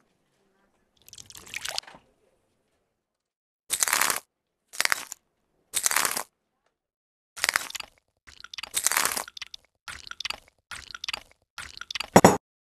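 Cartoon sound effects of retching and spewing liquid: a series of short, harsh, splattering bursts that come faster near the end, with the loudest as the stream pours out.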